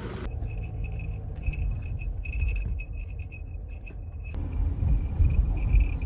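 Small silver jingle bell tied to a paper shopping bag, jingling on and off as the bag is moved, over a low rumble.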